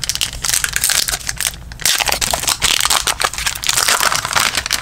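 Crinkling of a trading-card pack wrapper as it is opened, in two stretches with a brief pause a little under two seconds in.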